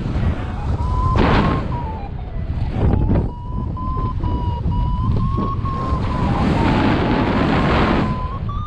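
Airflow buffeting a paraglider pilot's camera microphone in flight: a rumbling wind rush that swells in gusts. Under it a thin, high, continuous tone wavers and steps slightly in pitch, typical of a flight variometer.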